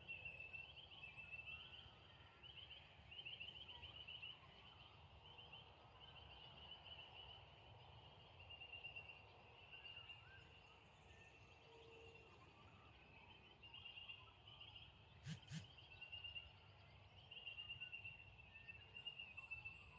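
Faint outdoor ambience: a steady high-pitched chirping trill that pulses rapidly at one pitch, over a low rumble, with two quick clicks about fifteen seconds in.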